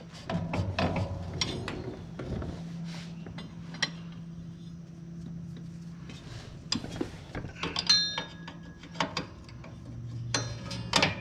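Metal hand tools clinking, tapping and scraping in irregular light clicks, with a brief ringing clink about eight seconds in, over a faint low hum.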